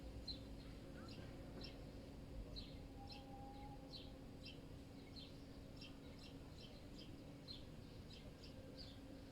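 Bird chirping over and over, short high chirps about two a second, over a faint steady low city hum.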